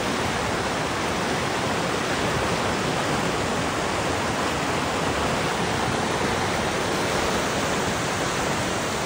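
Floodwater rushing in a steady, churning roar: a normally ankle-deep stream swollen by heavy rain into a raging torrent several feet deep, pouring past trees.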